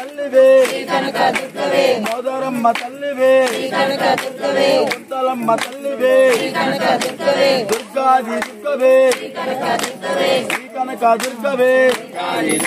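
A group of voices chanting a short devotional refrain in unison, repeating about every second and a half, over sharp percussive beats.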